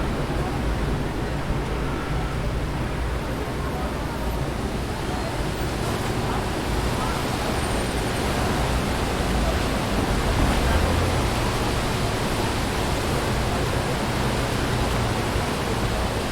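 Wind blowing through street trees and rustling their leaves, over a steady low rumble of city traffic. The sound swells slightly about ten seconds in.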